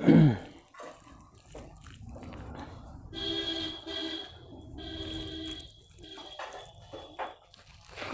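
Rice being mixed by hand with runny dal: soft wet squelching and dripping. A rooster's crow ends loudly right at the start, and a pitched call sounds twice in the middle.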